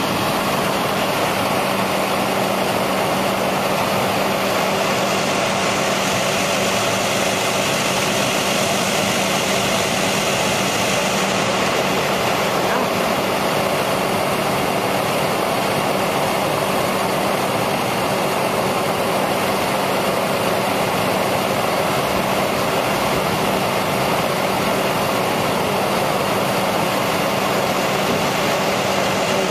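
Vehicle engine idling steadily, with a constant low hum under an even rushing noise.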